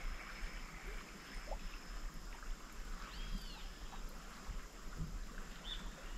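Faint riverside ambience: low water movement with a couple of short high chirps about halfway through.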